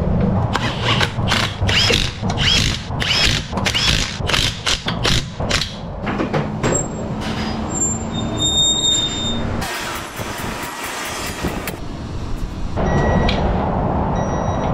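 Impact wrench running lug nuts onto the alloy wheel in a quick string of short bursts, each with a whine that rises and falls. Then a two-post car lift lowers with a long hiss of air.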